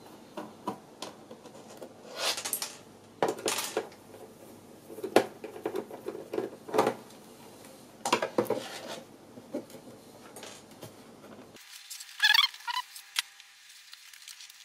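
Screwdriver and hands working on a plastic LCD monitor back casing: a run of sharp clicks and scraping, rattling stretches as screws are backed out and the casing is handled. Near the end the sound abruptly turns thinner and higher.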